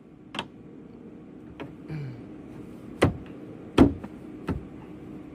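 A few separate sharp knocks and clicks, the loudest about four seconds in, over a faint steady hum.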